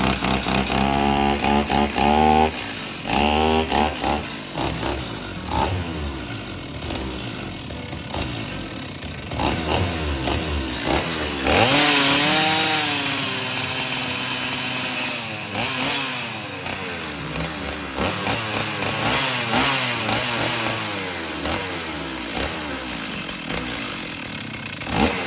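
Stihl MS390 two-stroke chainsaw engine running with the air filter off and the throttle held open, its pitch wandering up and down and sagging and recovering once about halfway through. The saw keeps running only at full throttle and will not settle to idle, which the owner puts down to too little fuel reaching the carburettor.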